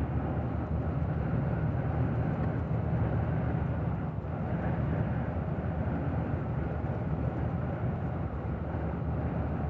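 Steady low engine drone and road noise inside a moving truck's cab as it climbs a mountain road.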